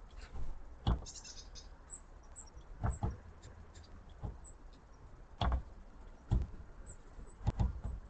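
Great spotted woodpecker pecking at peanut butter in a small wooden feeder: irregular sharp knocks, about eight, some in quick pairs.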